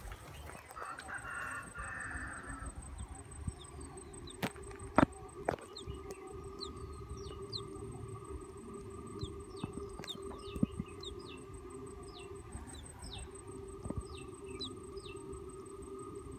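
A few sharp knocks about five seconds in as the bamboo nest tube is handled, then a run of short, high, falling bird chirps, about one or two a second, over a steady drone of insects.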